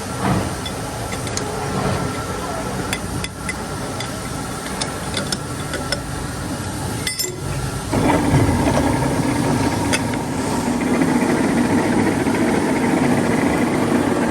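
Metalworking workshop machinery: a steady mechanical hum with scattered metal knocks, then about eight seconds in a louder machine starts up and keeps running at a constant pitch.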